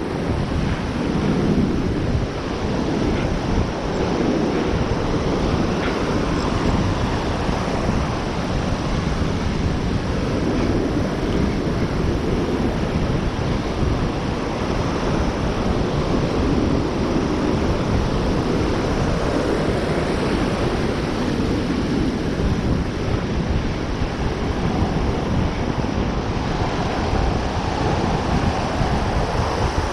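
Surf breaking and washing up the beach around the feet, with strong wind buffeting the microphone as a steady low rumble.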